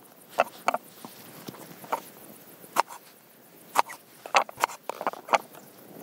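Kitchen knife cutting through eggplant and knocking on a wooden cutting board: about nine sharp knocks at uneven intervals, several in quick succession in the second half.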